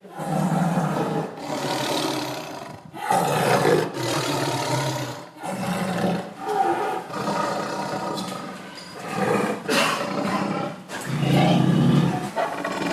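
A tiger growling and roaring: a series of rough, deep growls, each lasting one to three seconds, with short breaks between them.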